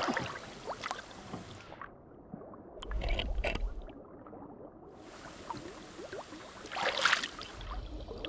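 River water splashing and gurgling around a camera held at and under the surface, the sound going muffled for a few seconds in the middle while it is under water. A louder splash comes near the end.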